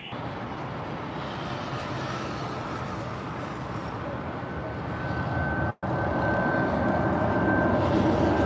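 Boeing 737 jet engines during the takeoff roll: a steady rushing roar with a thin high whine, growing louder, broken by a brief gap about six seconds in.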